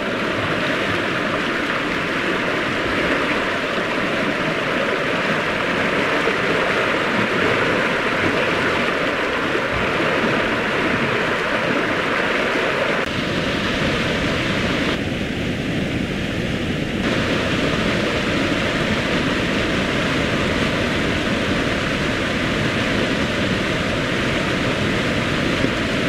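Steady rushing of fast water churning through a concrete fish pass. About halfway through it changes to white water pouring over a weir, with more low rumble in it.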